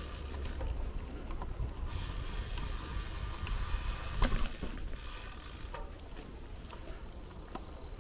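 Bicycle freewheel ratchet ticking while riding, over a steady low rumble of wind and road on the microphone, with one louder clack about four seconds in.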